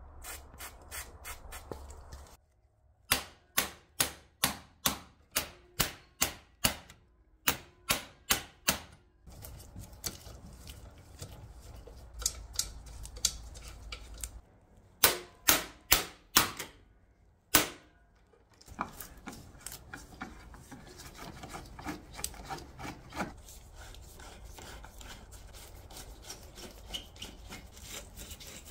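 Runs of sharp, evenly spaced metallic clicks, about two or three a second, followed in the latter part by a steady scraping rub as a screwdriver works a rusted screw in an iron bracket on a wicker pram's frame.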